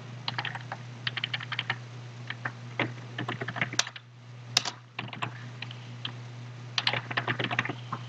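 Computer keyboard typing in quick bursts of keystrokes, with two sharper single clicks about halfway through, over a steady low hum.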